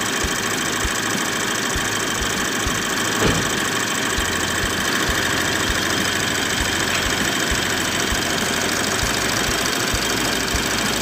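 2013 Mitsubishi Strada Triton's diesel engine idling steadily while it warms up, heard close up from the open engine bay.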